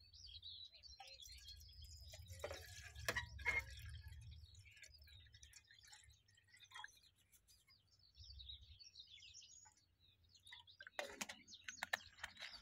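Faint handling of a plastic water bottle: clicks and crackles of the bottle and its cap, and water poured into a small camping kettle. Birds chirp faintly.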